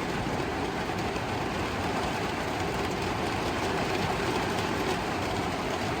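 Steady rain falling on the roof of a van, an even hiss.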